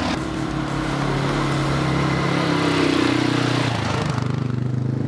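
Quad bike (ATV) engines running as the machines pull away and ride at low speed, their pitch drifting slowly up and then back down.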